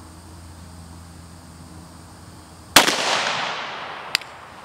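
A single shot from a Glock 41 .45 ACP pistol firing a 200-grain semi-wadcutter reload, about three seconds in. The report echoes and fades over about a second and a half, and a short sharp click follows about a second later.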